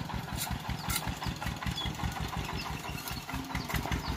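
A small engine idling steadily, with a rapid, even beat.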